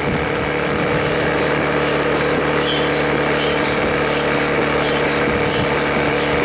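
Electric air pump running steadily, a constant motor hum with a rush of air, inflating the tube of a PVC inflatable boat.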